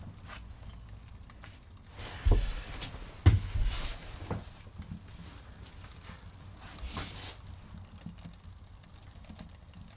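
Small log burner being tended during its first fire: a few sharp knocks and clunks, the loudest two about two and three seconds in, as the stove is worked and its door shut, over a faint crackling from the newly lit fire.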